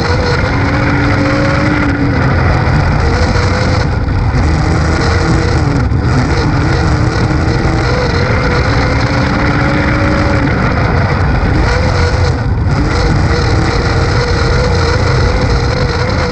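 Dirt-track race car engine heard from inside the car, running hard at high revs. Its pitch drops briefly and climbs again every few seconds as the throttle is lifted for the turns and reapplied.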